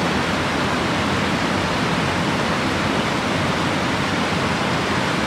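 A small waterfall cascading over rock into a creek pool: a steady rush of falling water.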